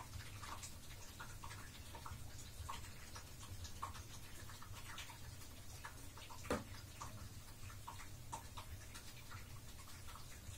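Faint, irregular small plinks and drips of water in a shallow draining bathtub, a few a second, with one sharper click about six and a half seconds in, over a steady low hum.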